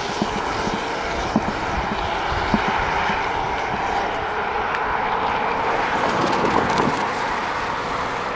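Helicopter flying over, a steady rotor and engine noise that swells a little midway and eases toward the end.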